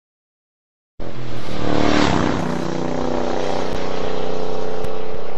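Motorcycle engine running while riding, with wind rush over it, starting about a second in after silence; the level dips briefly about two seconds in, then holds steady.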